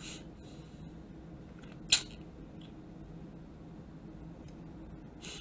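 A single sharp click about two seconds in, over a low steady room hum, with a short faint hiss near the end.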